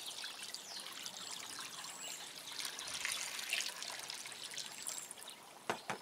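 Water poured from a glass pitcher into a shallow ceramic fountain bowl, a steady splashing trickle for about five and a half seconds, then a single knock near the end.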